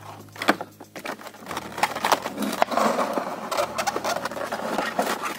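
Stiff clear plastic blister packaging crinkling and clicking as it is handled and a model car is pulled from it, busier from about a second and a half in.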